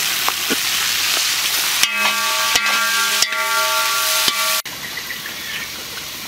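Leafy greens sizzling in hot oil in a large wok as they are stirred and tossed with a metal spatula. A steady pitched tone joins about two seconds in, and near the end the sound cuts off abruptly to a quieter hiss.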